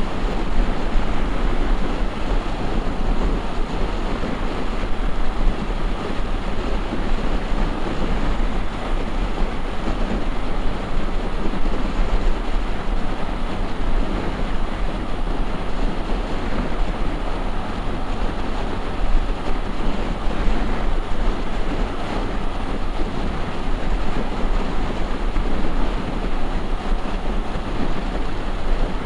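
Honda XRE 300's single-cylinder engine running steadily while the motorcycle is ridden, under a constant rush of wind on the action camera's microphone.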